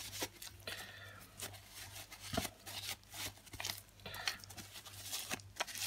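Tissue paper rustling and rubbing as it wipes along a metal stroller fork, with scattered light clicks and taps from handling the part.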